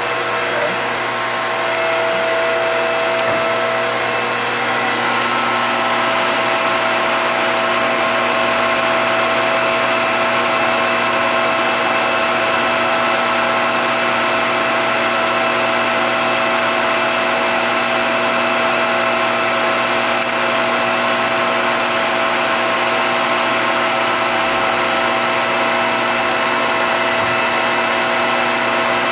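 Mollart A175 CNC twin-spindle gun drill running: a steady machine whine of several held tones over a hissing rush. A couple of the tones drop away about four to five seconds in.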